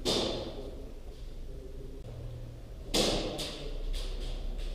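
Airsoft gunfire echoing in a large indoor hall: one sharp crack at the start, then a louder crack about three seconds in, followed by several quicker ones.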